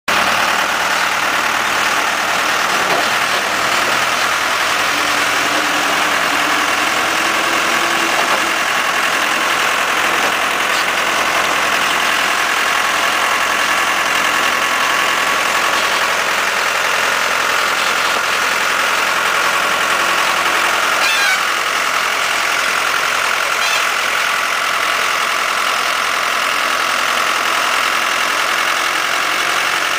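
New Holland tractor's diesel engine running steadily under load as it pulls a grader blade through loose soil.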